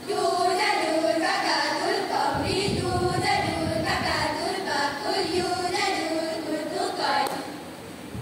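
Girls' choir chanting in unison in a melodic, sung style, a group recitation (kalam jamaie) delivered in phrases.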